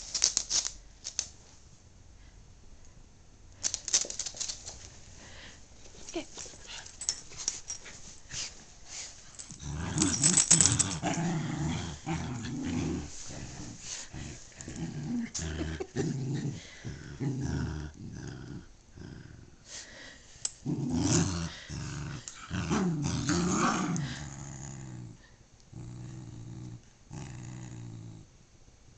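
Two dogs, a corgi and a Schnoodle, growling in play while tugging a rope toy: long, low growls in bouts with short breaks, starting about a third of the way in. Before that, scuffling and clicks from the scrabbling dogs.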